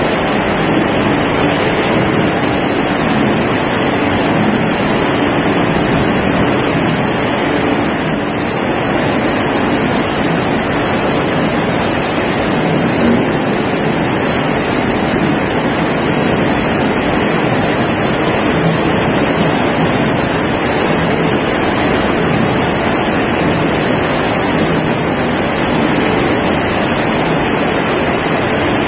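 French fry production line machinery running: a steady, dense rushing noise with a faint low hum underneath.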